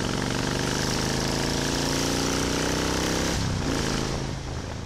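Motorcycle engine running under way, its pitch climbing slowly as it accelerates. About three and a half seconds in, the note changes and the sound fades away.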